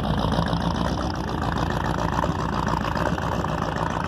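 A car engine idling steadily close by, with a dense noisy background over it.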